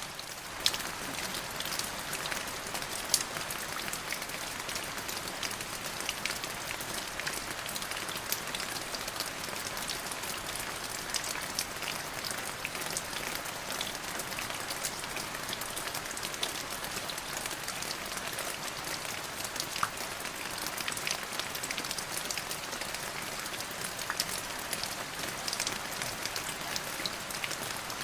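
Steady rain falling on a surface, an even hiss with many distinct drops pattering through it.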